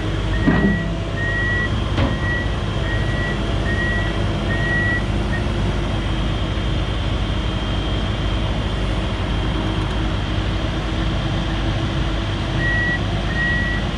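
Komatsu 170 excavator's diesel engine running steadily as the machine travels, its travel alarm beeping about three times every two seconds, stopping about five seconds in and starting again near the end. A couple of knocks in the first two seconds.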